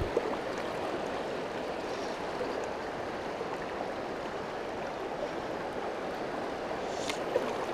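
Shallow river current flowing steadily over rocks: an even rush of moving water.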